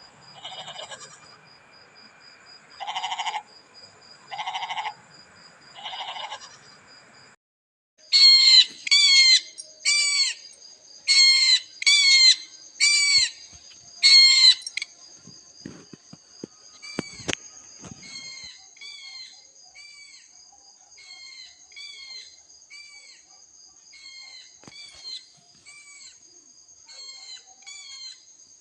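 Goat bleating three times, followed by a different animal's rapid high chirping calls: a run of loud, falling chirps about one a second, then fainter chirps repeating steadily.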